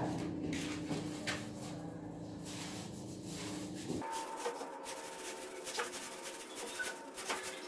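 Paintbrush brushing paint onto a wall, faint rubbing strokes with a few light taps. A low steady hum underneath cuts off suddenly about four seconds in.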